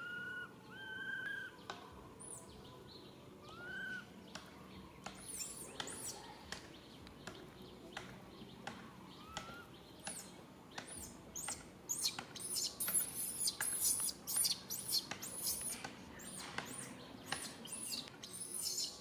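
Repeated sharp, very high-pitched chirping calls, growing busier and louder in the second half, with a few short arched whistled calls near the start.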